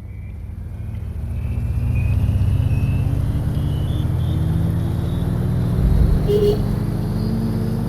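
A road vehicle's engine running, its pitch climbing slowly as it gathers speed, with a short beep about six seconds in.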